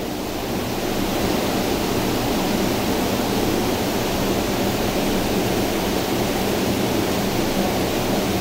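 Steady, loud rushing roar of the hydroelectric plant's surroundings, like heavy running water, with a low hum under it. It swells slightly in the first second and then holds even.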